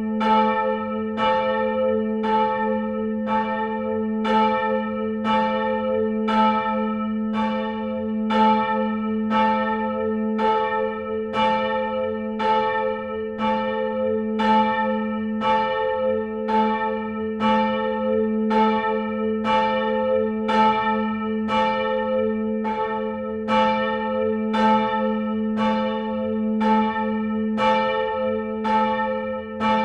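A single church bell ringing steadily, struck by its clapper about once a second, its low hum sounding on between strokes.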